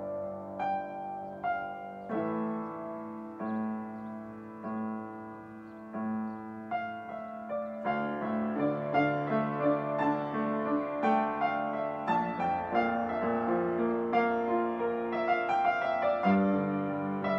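Solo piano playing held chords with a melody over them, growing louder and busier, with quicker notes, about eight seconds in.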